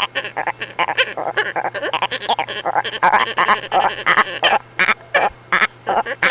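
A man's voice making comic animal-like noises: short honking, croaking bursts in quick succession, with no words.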